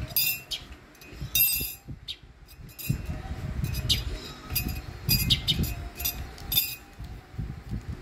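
A metal spoon clinking against a ceramic coffee mug: several light clinks at irregular intervals, over a low rumble.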